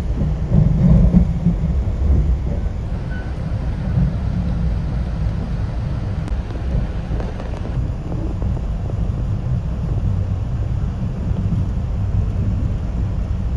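Passenger train running along the track, heard from inside the car: a steady low rumble of the wheels and car body.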